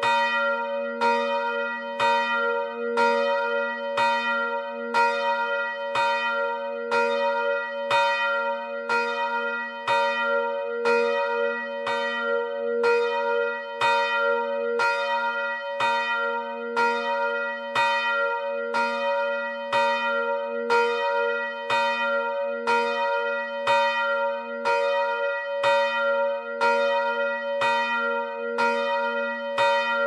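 Swinging church bell, the middle bell of three (Rudolf Perner, Passau, 2009; 85 cm, 350 kg, nominal b'), rung on its own. The clapper strikes about once a second, each stroke over a steady ringing tone with a strong low hum.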